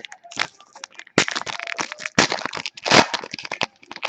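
Crinkling and crackling of a foil trading-card pack wrapper being handled and torn open, in quick irregular bursts.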